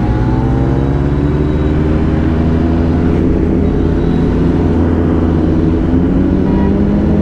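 Superbike engine pulling under way, its pitch climbing slowly and steadily as the bike gains speed, over a steady low rumble of wind on the rider's microphone.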